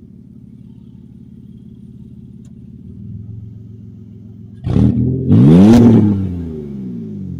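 Lifted SUV's engine idling with a steady low rumble, then revved hard a little past halfway, the pitch climbing and then falling back toward idle.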